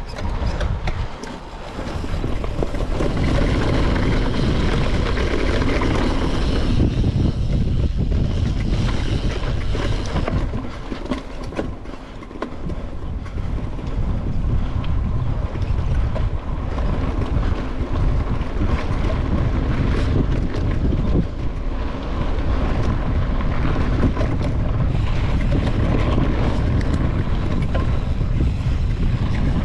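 Wind rushing and buffeting on a GoPro's microphone while a mountain bike rides a dirt and gravel trail, with tyre noise and rattling from the bike underneath. It eases off briefly partway through, then picks up again.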